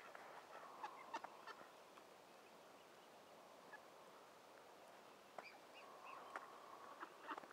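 Faint, scattered calls of waterfowl, ducks and geese, thinning out in the middle and picking up again near the end.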